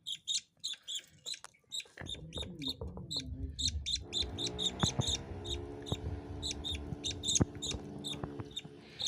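Budgerigars chirping rapidly, several short high chirps a second, typical of a chick begging while its parents feed it. A steady low hum with several tones comes in about two seconds in and fades out near the end.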